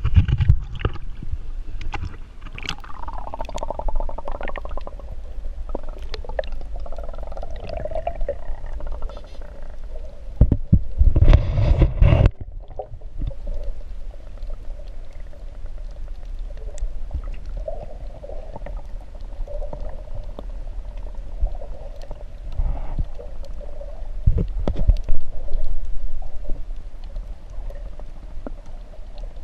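Muffled underwater sound around an action camera held below the surface over a coral reef: water sloshing and gurgling with a steady wavering hum. Louder rumbling water movement comes in about eleven seconds in and again near twenty-five seconds.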